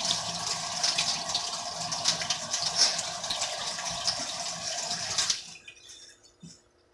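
Kitchen sink tap running, with water splashing, while a knife is washed with a sponge. The water is shut off abruptly about five seconds in, leaving only a couple of faint knocks.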